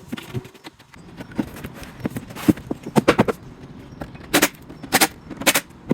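Irregular sharp knocks and clatters of cabinet panels being handled and set against each other, sparse at first, then coming in quick clusters from about halfway through.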